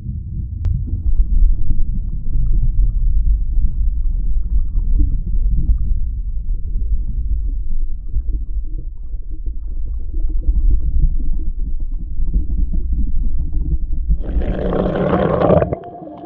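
Muffled, steady low rumble and sloshing of water as heard by an action camera's microphone while submerged. About fourteen seconds in, a louder, brighter burst of noise lasts a second or so and cuts off suddenly.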